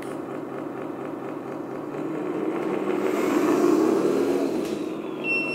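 An RC dump truck's sound module plays a simulated truck engine as the truck drives in high gear; the engine sound swells to its loudest about three to four seconds in, then eases off.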